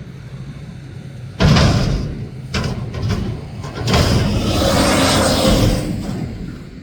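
Mack garbage truck with a McNeilus front-loader body at work. A sudden loud burst of noise comes about a second and a half in, followed by a few sharp knocks, then a loud rushing noise with the engine underneath that fades near the end.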